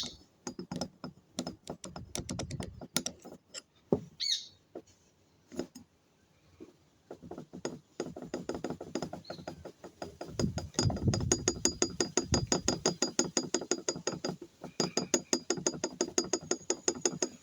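Metal clacking from the worn parts of a 110/125 motorcycle's cylinder head, rocked by hand to copy the rattle the running engine made. The aluminium is worn away from running without lubrication, so the parts have play. Irregular clicks at first, then from about eight seconds in a fast, even clacking of several knocks a second.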